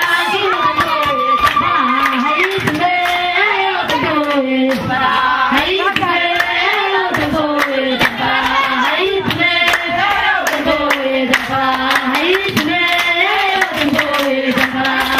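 A woman singing a Somali buraanbur into a microphone, her voice gliding up and down in long sung phrases, with dancers clapping hands in rhythm.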